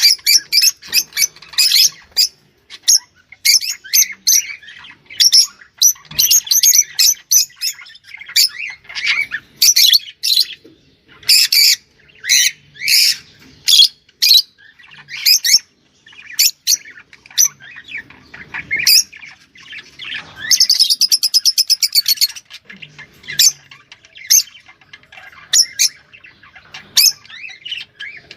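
Ornamental cage birds calling: a fast, loud run of sharp chirps and squawks, with a buzzy trill lasting about two seconds some twenty seconds in.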